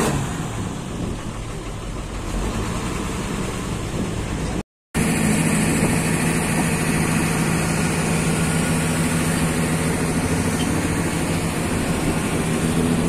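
Bus diesel engine idling. After a brief break about five seconds in, the idle comes in louder and steadier, an even low hum.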